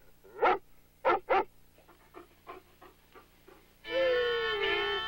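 An Airedale terrier barks sharply three times, then gives a run of fainter, quicker yaps. About four seconds in, fiddle music comes in.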